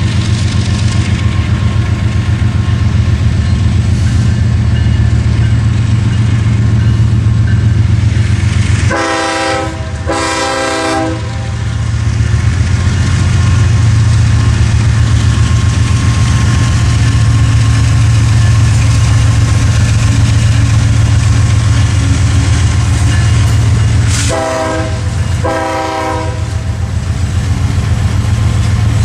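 A Canadian Pacific diesel locomotive runs close by with a loud, steady low rumble. Its air horn sounds two short blasts about nine seconds in, then two more about fifteen seconds later.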